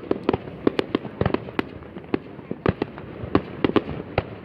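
Fireworks going off in a dense, irregular barrage: sharp bangs of differing loudness, several a second, over a constant background of crackling.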